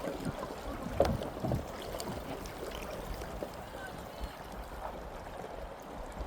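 Broken pieces of thawing river ice knocking and clinking against one another in irregular clicks, with a sharper knock about a second in and another shortly after.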